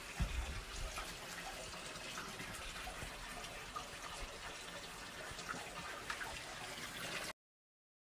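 A faint, steady trickle of running water with a few light clicks, cut off suddenly near the end.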